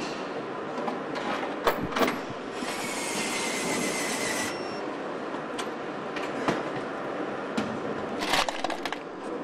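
Car assembly line noise: a steady din of machinery with sharp metallic clicks and knocks, and a hiss lasting about two seconds a little before the middle.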